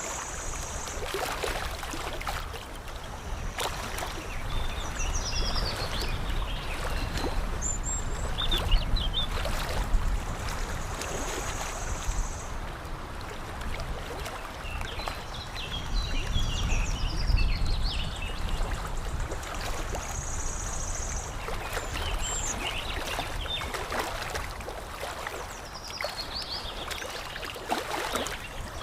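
Water lapping and splashing, with small birds chirping and trilling on and off throughout.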